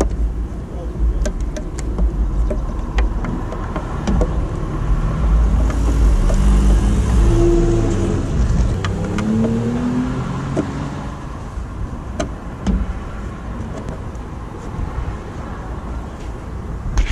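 A car's engine running past, rising in pitch between about five and eleven seconds in, over a steady low wind rumble on the microphone. Scattered light plastic clicks come from handling the pickup's tail light housing and bulb socket.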